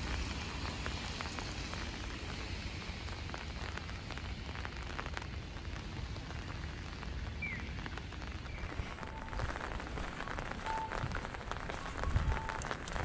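Steady rain falling on wet pavement, with a few short beeps repeating in the last few seconds.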